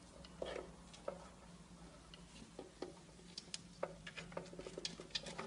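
Quiet room with a low steady hum and faint, irregular clicks and taps that come more often in the second half.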